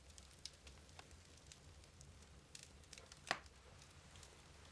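Near silence: a faint low hum with a few scattered small clicks, and one sharper click about three seconds in.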